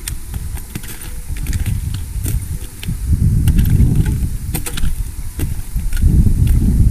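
Wind buffeting the microphone in a low rumble that grows stronger about three seconds in and again near the end, with scattered sharp clicks and crunches of footsteps on hard glacier ice.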